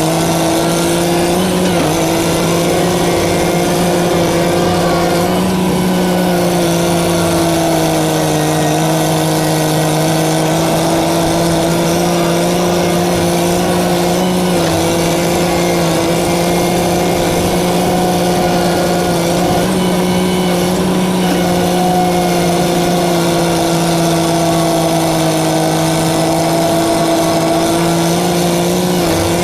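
Vehicle engine running at a steady speed, a continuous drone whose pitch drifts slightly up and down.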